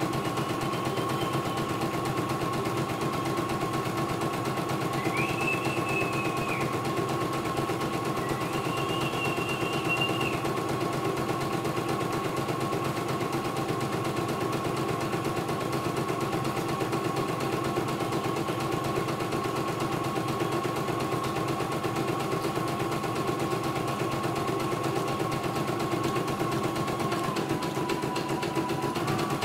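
CNY E900 computerized embroidery machine stitching a design: a fast, even needle clatter over a steady motor hum, with two brief higher-pitched tones about 5 and 9 seconds in.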